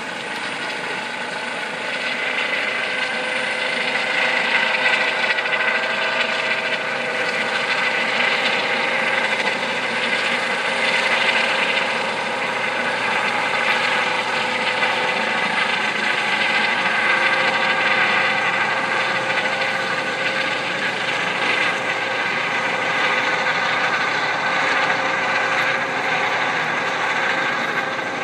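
Rescue helicopter flying overhead: a steady turbine whine and rotor noise that grows louder about two seconds in and then holds.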